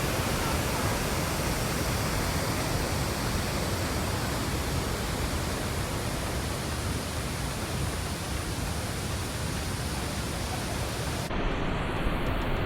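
Steady rushing noise of a large waterfall in full monsoon flow. About eleven seconds in, the high hiss cuts off suddenly and the lower rushing goes on.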